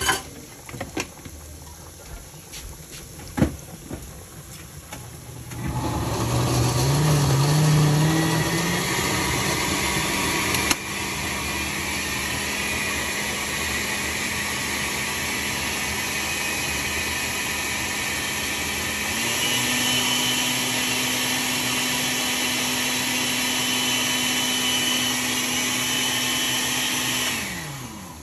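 Countertop blender puréeing tomatoes, garlic, chipotle chiles and chicken broth into a sauce. A few knocks, then the motor starts about six seconds in, runs steadily, steps up in pitch about two-thirds of the way through, and winds down as it is switched off near the end.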